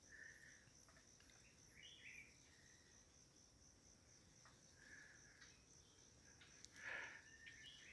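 Faint forest ambience: a steady, high insect trill with a few short chirps scattered through it.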